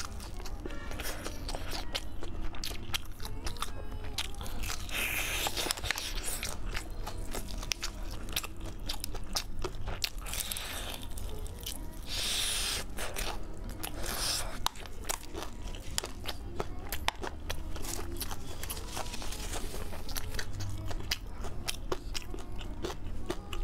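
Close-up crunching and chewing of crispy batter-fried chicken: a stream of crackly bites and wet chews, with several louder crunches in the first two thirds.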